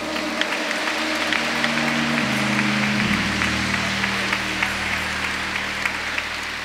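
Audience applauding, with sustained low instrumental chords underneath that shift twice, about two and three seconds in, then hold.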